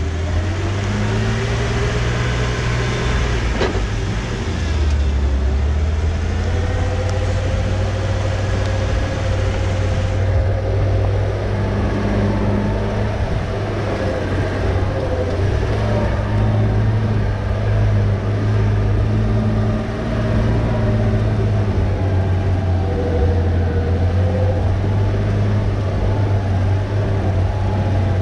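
Off-road 4x4's engine running steadily at low crawling speed, its pitch shifting a little with the throttle. A hiss of tyres on wet pavement lies over it and stops abruptly about ten seconds in, as the vehicle moves onto rock.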